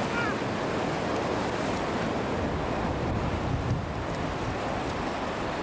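Ocean surf washing onto the beach in a steady rush, with wind blowing on the microphone.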